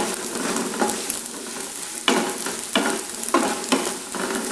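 Coconut pieces frying in hot coconut oil in a pan, a steady sizzle. A few sharp scrapes of a spatula stirring them come in the second half.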